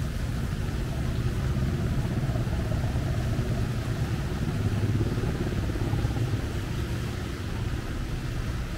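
Steady low rumble of rainy street ambience, motor traffic with a faint hiss of rain, swelling slightly around the middle.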